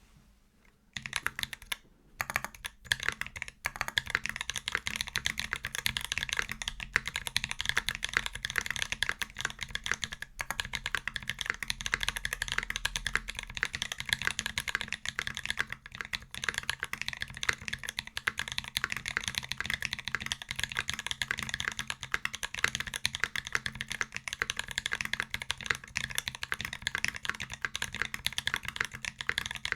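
Continuous fast typing on a TX60 mechanical keyboard with lubed OG Holy Panda tactile switches, a copper plate and GMK keycaps, giving a dense stream of key clacks. The typing starts about a second in and pauses briefly twice soon after.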